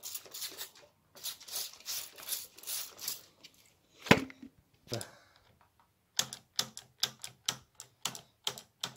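Trigger spray bottle squirting rinse onto a moped's front brake disc: several short hissing squirts. Then one loud sharp click about four seconds in, and a fast run of clicks, about three or four a second, near the end.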